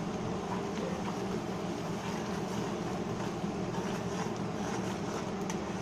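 Oily masala gravy sizzling in a steel kadai while a spatula stirs and scrapes it, over a steady low hum.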